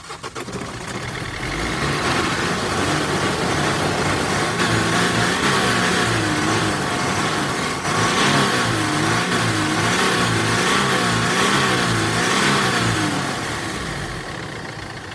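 Mercedes Sprinter's OM651 2.1-litre four-cylinder turbo diesel starting at the first attempt, with cylinders freshly soaked in decarbonising cleaner. It runs loud, its pitch rising and falling over and over, then settles lower and quieter near the end.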